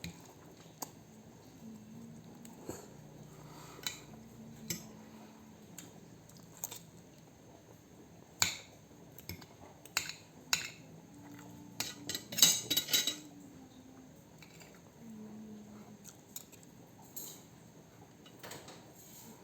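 Cutlery clinking and scraping against a plate during a meal: scattered single clicks, with a quick run of clinks about twelve seconds in.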